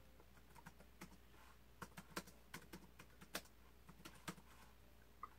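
Typing on a laptop keyboard: faint, irregular keystrokes, thickest and loudest in the middle.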